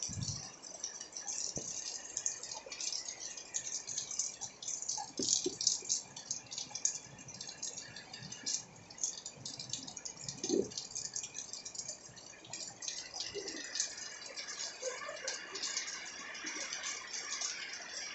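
Heavy rain falling into a pool of standing water and onto a paved courtyard: a dense crackle of countless small drop impacts, with a lower plop of a drop into the water now and then.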